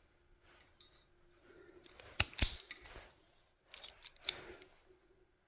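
Sharp snips and clicks of hand cutters working a piece of ground wire: two close together a little past two seconds in and a few more past four seconds.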